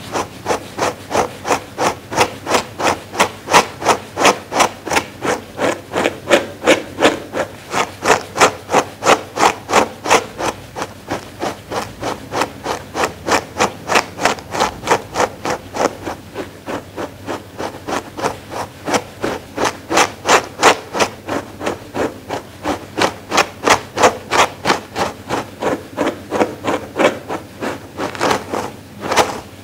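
A grooming brush being stroked briskly and repeatedly through a fluffy fur pad, a rhythmic scratchy brushing at about three strokes a second.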